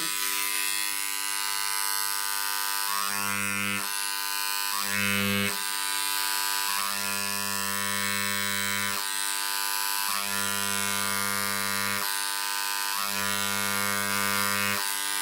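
Dremel Engraver 290-3 running with a carbide bit set to its deepest stroke, engraving leather: a steady electric buzz. A lower hum comes and goes five times, in stretches of one to two seconds.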